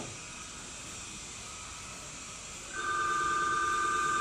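An electronic ringing tone, steady with a slight warble, sounds for about a second and a half starting a little past halfway, over a low steady hiss. A short click comes right at the start.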